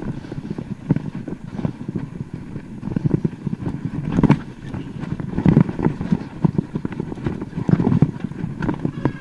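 Mountain bike descending a rough trail: irregular clattering and knocking from the tyres, chain and frame jolting over the ground, with a constant low rumble.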